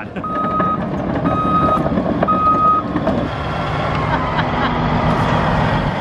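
Backup alarm of a Caterpillar D9L bulldozer beeping three times, about once a second, over the steady running of its diesel engine. The beeping stops about three seconds in, and the engine keeps running.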